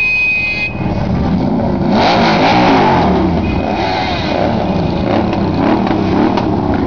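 Sports car engine revving, its pitch rising and falling and loudest about two to three seconds in. A car horn's note cuts off less than a second in.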